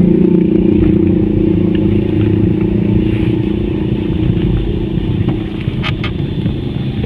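A Toyota car's engine and road noise heard from inside the cabin while it is driven: a steady low noise that eases a little near the end, with one short click about six seconds in.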